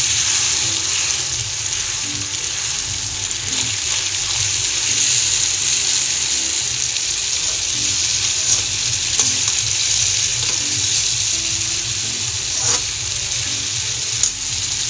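Grated tomato sizzling as it fries in hot oil with fried onions in a steel kadhai: a steady, loud hiss. A metal spatula stirring it knocks against the pan with a few sharp clicks in the second half.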